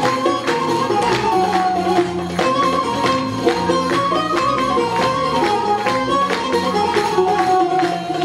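Turkish folk music ensemble playing the instrumental introduction of a türkü: a melody over a steady percussion beat, with no singing yet.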